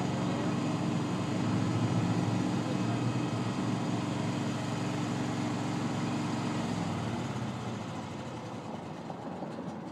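Ride-on lawn mower engine running at a steady speed, its hum dropping away about seven seconds in.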